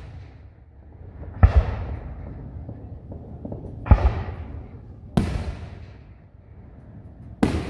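Fireworks exploding: four sharp booms at uneven spacing over about six seconds, each trailing off in a fading rumble.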